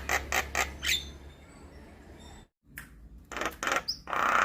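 Javan myna calling: a fast run of harsh repeated notes, about six a second, that stops about a second in. After a brief silent break the calling starts again, with a loud harsh squawk near the end.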